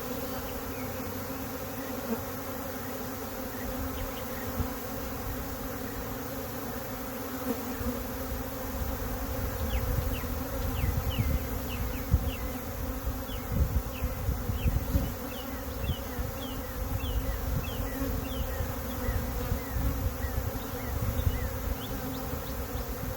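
Honey bee swarm buzzing close around the microphone, a steady many-winged hum. From about eight seconds in, irregular low thumps and rustling join it.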